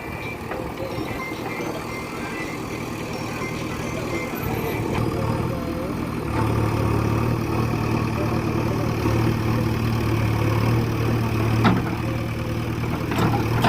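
JCB 3DX backhoe loader's diesel engine running steadily, growing louder and heavier about six seconds in as it takes on load. A couple of sharp knocks come near the end.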